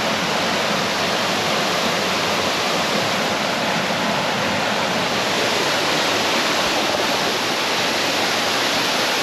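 Waterfall pouring into its pool, a loud, steady rushing of falling water.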